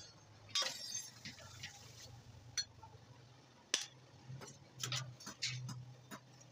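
Blacksmith's steel tools (tongs, hammer and a forged chisel) clinking and tapping against each other and the anvil as they are handled and set down: about ten sharp, irregular clinks. A low steady hum runs underneath.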